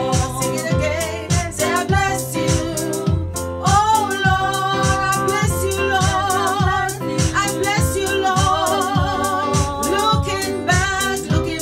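Gospel worship song: a woman singing with vibrato over keyboard accompaniment and a steady beat.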